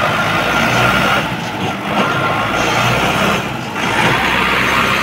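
Sonalika 60 hp tractor's diesel engine running loudly, its level swelling and dipping a few times.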